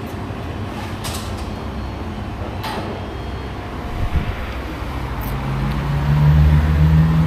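Street noise with a few sharp clicks, then a motor vehicle's engine hum that grows louder over the last two seconds.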